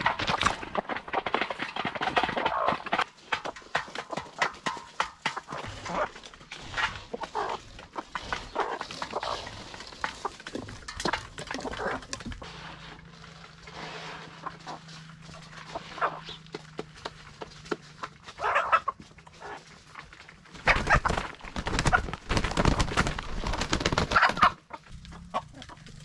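Hens clucking as they peck at grain feed in a plastic tub, with many irregular sharp taps of beaks and grain. Near the end there is a louder burst of scraping and rustling.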